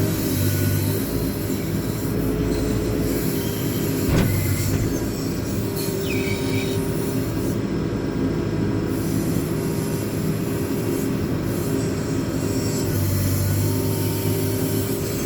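JCB 4CX backhoe loader's diesel engine running under hydraulic load as the rear backhoe boom works, its note rising and easing with the load. A sharp metal clank comes about four seconds in, and a brief high squeal about two seconds later.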